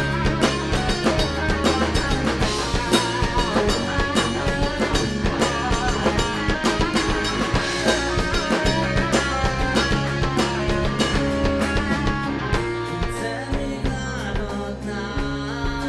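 A rock band playing live: drum kit with kick and rimshot hits over bass and electric guitar. The drumming thins out near the end.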